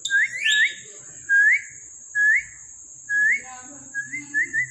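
A series of short whistles, each a quick upward glide. Five notes come spaced out, then a fast run of small chirping whistles near the end.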